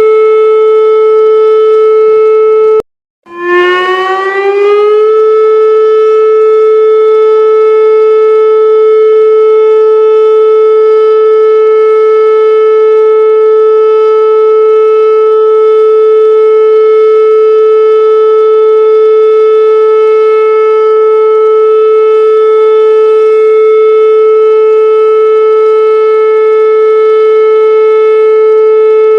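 Warning siren holding one steady, loud tone. About three seconds in it cuts out for a moment, then comes back with a short rising glide in pitch and settles on the same steady tone.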